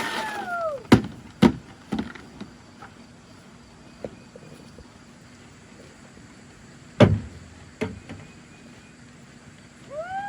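Several sharp knocks: three in quick succession about a second in, a louder, heavier one about seven seconds in and a lighter one just after. At the very start a drawn-out animal call rises and falls away.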